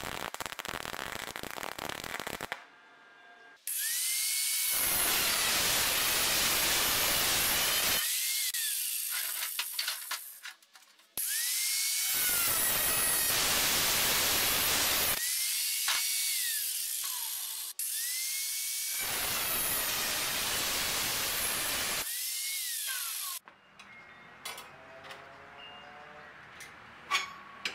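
A MIG welder crackles briefly at the start. Then an angle grinder is run three times on a thin steel strap, with a long loud grinding burst each time, its motor whining up to speed and winding down after each run. Near the end there are only light clicks of metal parts being handled.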